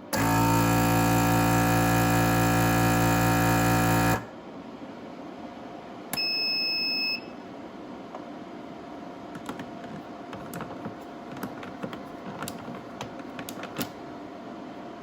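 Weston Pro vacuum sealer's pump running with a steady, loud hum for about four seconds as it draws the air out of the bag, then cutting off abruptly. Two seconds later a single high beep sounds for about a second, followed by light handling clicks.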